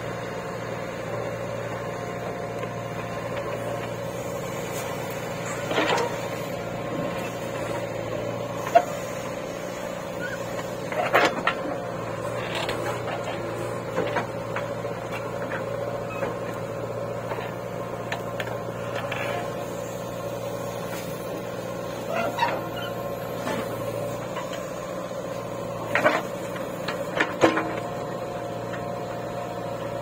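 JCB 3DX backhoe loader's diesel engine running steadily while the backhoe digs. A handful of short sharp sounds are scattered through, the loudest about nine seconds in.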